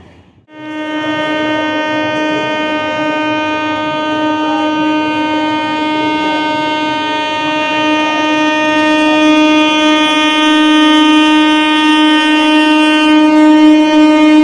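Horn of an approaching suburban electric local train, held as one long unbroken steady note. It starts suddenly about half a second in and grows slowly louder as the train nears.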